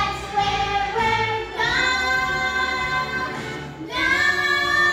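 Children singing a musical-theatre number over instrumental accompaniment, holding long notes, with new phrases starting about a second and a half in and again near the end.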